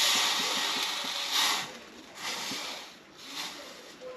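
Hissing at a freshly brazed copper refrigerant line, in surges that are loudest in the first second and a half and fade out over the second half.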